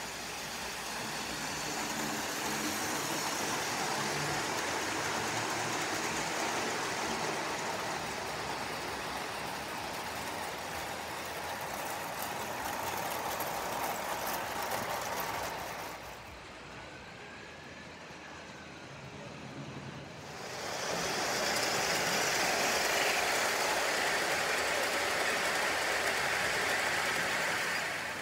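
O gauge model goods train running on metal track: a steady rolling rattle of wheels on rail. It dips for a few seconds past the middle, then comes back louder near the end.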